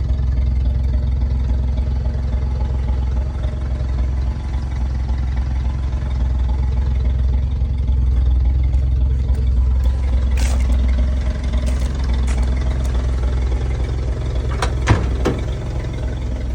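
Engine of a 1961 Chevrolet Apache 60 truck idling smoothly and steadily, with a few sharp clicks near the end.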